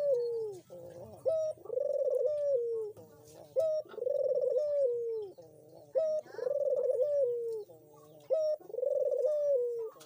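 Barbary dove (puter) cooing in repeated phrases, about four in all. Each is a short sharp note followed by a longer rolling coo that drops in pitch at its end, one phrase roughly every two and a half seconds.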